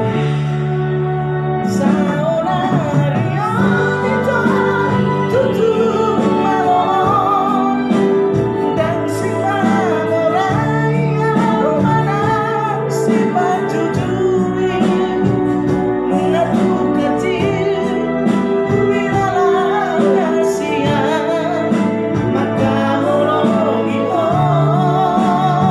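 A man singing emotionally with held, wavering notes over an instrumental backing track.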